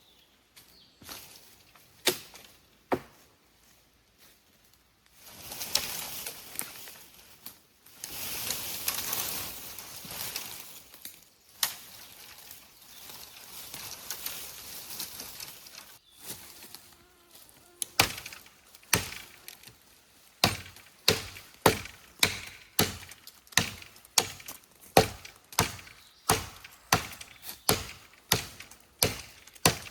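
Repeated chopping strikes with a blade, settling into a steady rhythm of about two sharp strikes a second from about two-thirds of the way in. Before that come a few scattered knocks and a stretch of rustling and scraping.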